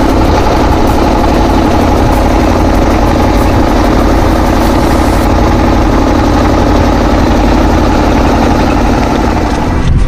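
Wooden fishing boat's engine running steadily under way, a loud, even drone.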